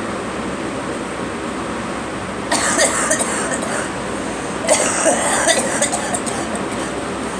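A person coughing in two bouts, about two and a half seconds in and again near five seconds, over a steady background hiss.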